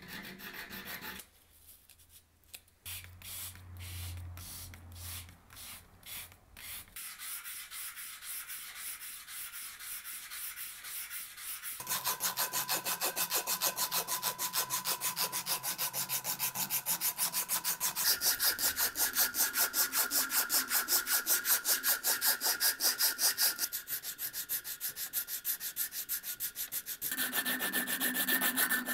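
Sandpaper rubbing on a wooden hatchet handle in fast back-and-forth hand strokes. The strokes get louder and busier about halfway through, after a quieter start with scattered clicks and a brief hacksaw cut at the very beginning.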